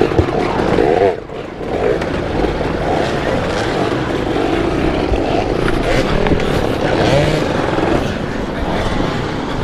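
Dirt bike engines revving up and down unevenly, the pitch rising and falling, from the rider's Kawasaki KLX110 pit bike and other enduro bikes working over log and rock obstacles. The sound dips briefly about a second in.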